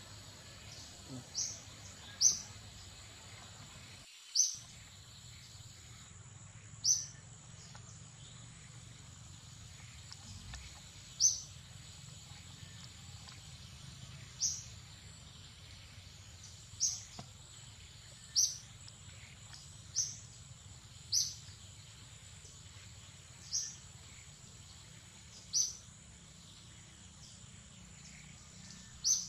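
A bird repeating a short, high, downward-slurred call about a dozen times, at uneven gaps of one to four seconds, over a faint steady high-pitched insect buzz.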